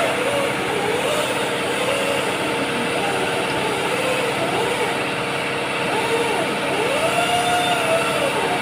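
Steady mechanical hum of workshop background noise, with a faint wavering voice over it.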